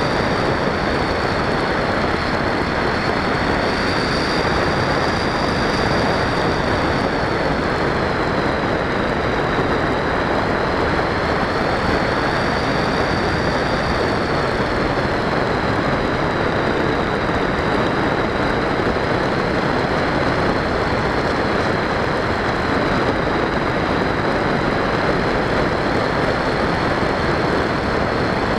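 Onboard sound of a Multiplex Easystar 2 model plane in flight: the electric motor and pusher propeller running with a high whine that wavers slowly in pitch, over a steady rush of wind and airframe noise.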